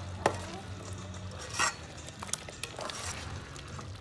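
A utensil stirring in a cooking pot, with a sharp clink against the pot about a quarter second in, a short scrape after a second and a half, and a few lighter knocks near the end.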